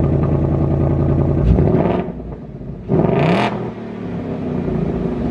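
2024 Ford Mustang GT's 5.0 L V8 running through factory Dark Horse quad-tip axle-back exhaust. It is held at raised revs, then drops back about two seconds in. About a second later comes one quick rev blip, rising in pitch, before it settles back to idle.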